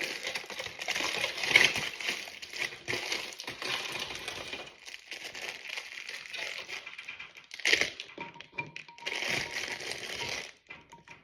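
Aluminium foil and a plastic bag crinkling as they are unwrapped from around eggs. The crackling is densest in the first few seconds, with a sharper rustle near the end.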